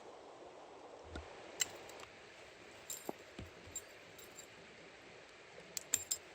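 A few light clicks and small metallic-sounding clinks in short clusters.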